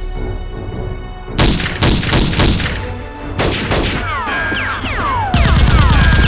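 Dubbed-in gunfire sound effects over background music: a few separate shots, then falling whistling sweeps, then a rapid burst of automatic fire near the end.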